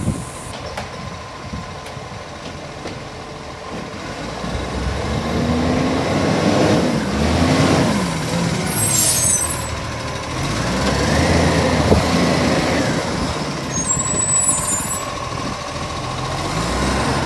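Garbage truck engine revving up and falling back twice, with two short hisses of air, about nine and fourteen and a half seconds in.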